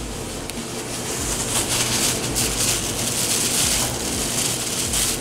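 Cream and shredded cheese sizzling and bubbling in a hot stainless sauté pan over a gas burner, a steady hiss. Par-cooked rice is tipped into the pan near the end.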